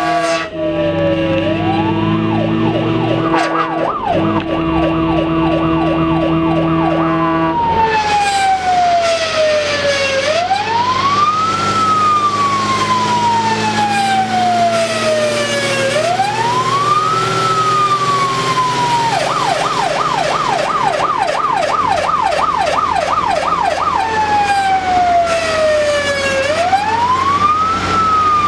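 Fire engine's siren heard from inside the cab on an emergency run: a slow wail, each cycle falling for about four seconds and then rising quickly. It switches to a fast yelp twice, for several seconds near the start alongside a steady horn tone, and again briefly a little past the middle. The truck's engine runs low underneath.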